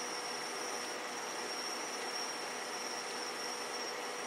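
Steady chorus of night insects, high and unbroken, over a constant hiss, with no firework bangs.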